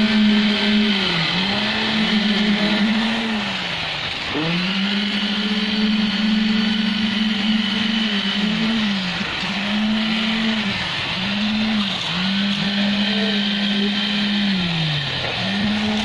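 Handheld electric concrete poker vibrator whining steadily. Its pitch sags and recovers every second or two as the vibrating head is pushed into the wet concrete and drawn out again.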